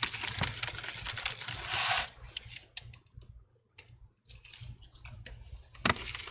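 Small screwdriver and screws clicking and ticking as screws are put in to hold a replacement laptop LCD panel in the lid, with a short rustle of handling about two seconds in.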